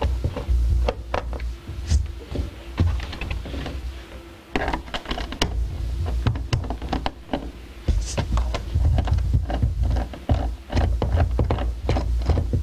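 Scattered clicks and knocks of plastic hot tub control panel parts being handled and fitted.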